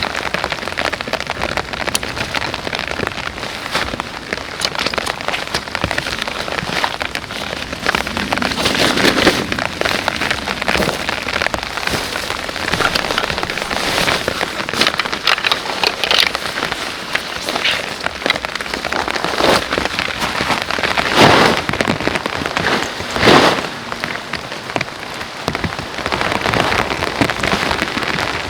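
Heavy rain falling steadily, with dense drops striking a surface close by and two louder short hits about three quarters of the way through.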